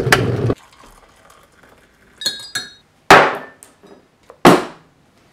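A steady noise stops about half a second in. A few light ceramic clinks follow, then two sharp knocks about a second and a half apart: a ceramic mug set down hard on a hard table, slopping tea.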